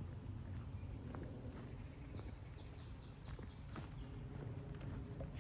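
A songbird singing a quick run of short, high whistled notes at several pitches, over footsteps on a dirt woodland path and a steady low rumble.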